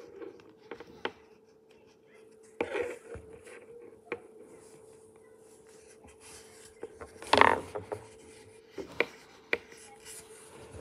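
Rubbing and scraping of a small hard object pressed into a sheet of craft foam on a table, with scattered light clicks and knocks, over a faint steady hum. A short, louder sound breaks in about seven seconds in.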